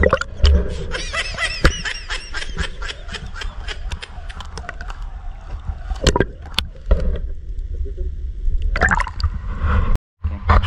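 Shallow sea water gurgling and sloshing around a camera held just under the surface, with a low rumble and many sharp clicks and knocks.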